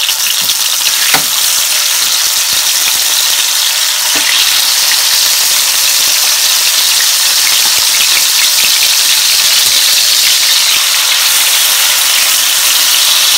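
Slices of liver sizzling in very hot oil in a frying pan as more pieces are laid in; the frying is loud and steady and grows fuller about four seconds in.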